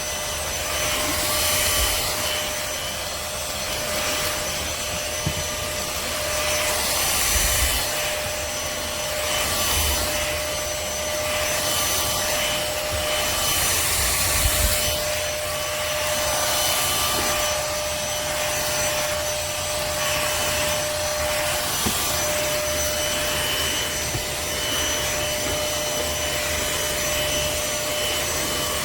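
Trucozie cordless stick vacuum running with a steady motor whine while its cleaning head is pushed back and forth over the floor, the suction hiss swelling and easing every second or two with the strokes.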